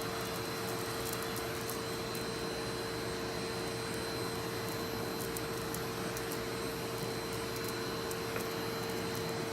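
Vacuum cleaner running steadily with a constant whine, its nozzle sucking shed fur off a cat's coat.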